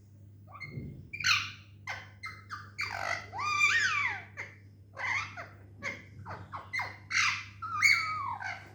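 A pet bird calling in a quick series of short chirps and squawks, some with whistled pitch glides rising and falling, busiest around the middle.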